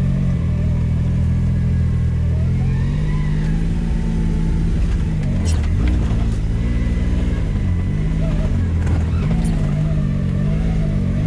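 A Can-Am Maverick X3 side-by-side's turbocharged three-cylinder engine, heard from inside the open cab, is held low at first and then eased up and down in short throttle blips as the machine crawls up a rocky, rutted climb. A sharp knock, like the chassis or a tyre striking rock, comes about five and a half seconds in.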